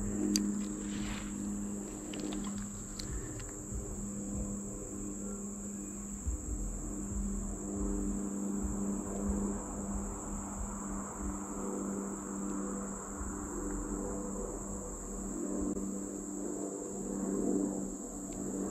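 Summer insect chorus: a steady, high-pitched drone that holds without a break, with low steady tones humming underneath.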